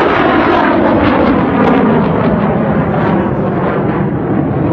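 Military jet's engine, loud and continuous, as the jet pulls up and climbs away; its pitch falls steadily over the first few seconds.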